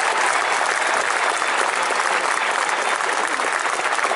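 Large stadium crowd applauding, a steady dense clatter of many hands clapping.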